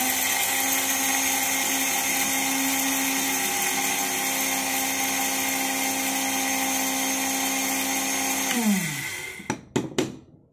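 Electric spice grinder with a stainless-steel jar running at full speed, grinding black peppercorns to powder. Near the end the motor is switched off and spins down with a falling whine, followed by a few sharp knocks.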